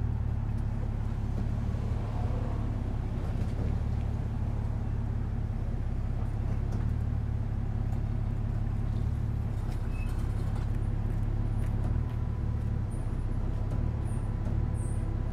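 A motor vehicle's engine idling: a steady low rumble, with a few short high chirps near the end.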